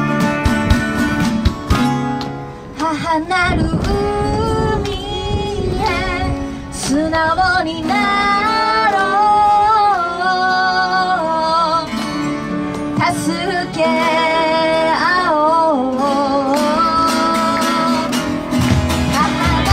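A woman singing a slow song to acoustic guitar accompaniment. The guitar plays alone at first, then her voice comes in about three seconds in, with vibrato on the held notes.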